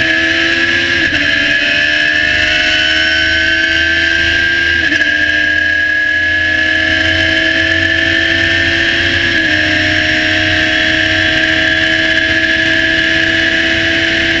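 Radical SR3 1500 race car's motorcycle-based 1.5-litre four-cylinder engine at full throttle near 10,000 rpm, heard from the cockpit. Its pitch climbs steadily and drops at each quick upshift, about 1, 5 and 9.5 seconds in and again at the very end.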